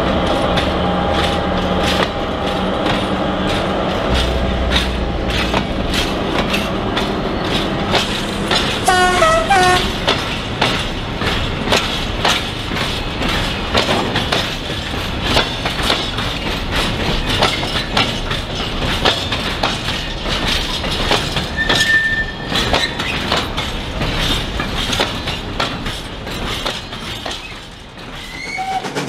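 HO-scale model trains running on the layout, their wheels clicking and clattering over the track joints. A short series of horn-like tones sounds about nine seconds in.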